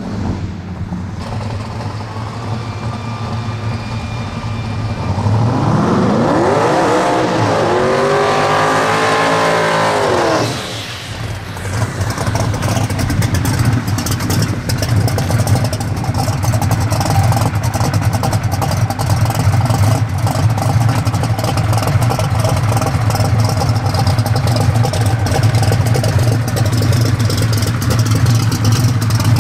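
A drag-race V8, first with its pitch climbing and falling back over about five seconds. Then, from about halfway through, the Boss 632 big-block V8 of a Ford Mustang drag car idles loudly close by with a choppy, uneven beat.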